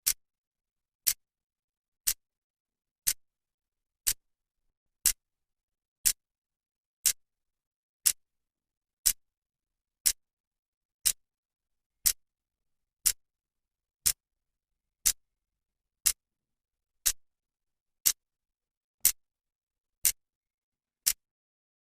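Clock second hand ticking, one sharp tick a second, evenly spaced, with silence between the ticks.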